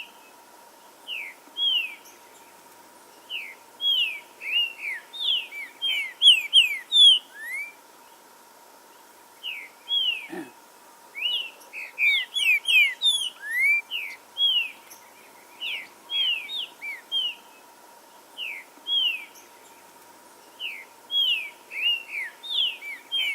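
Green-winged saltator (trinca-ferro) singing: phrases of short, clear whistled notes, each gliding in pitch, with a few short pauses between phrases. Faint high chirps from another bird come in now and then, over a faint steady tone.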